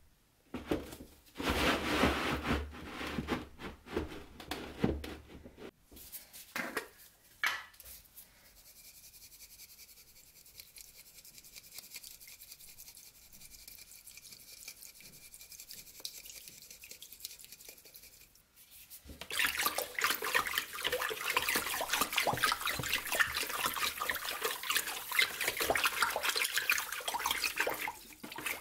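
A plastic tub being handled with scraping and a couple of knocks, then a steady faint stream of water running into it. About two-thirds of the way in, louder sloshing and splashing begins as the water in the tub is stirred with a wooden stick.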